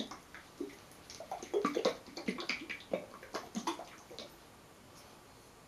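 Seafood butter sauce sloshing and gurgling inside a jar as it is shaken, in short irregular splashes that die away after about four seconds.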